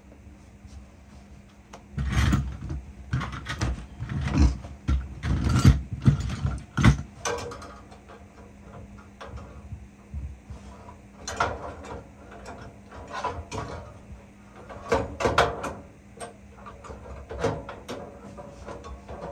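Irregular metal knocking, clunking and scraping from hands and tools working on a furnace's evaporator coil and sheet-metal cabinet. It comes in a loud cluster about two seconds in and again in the second half, over a faint steady hum.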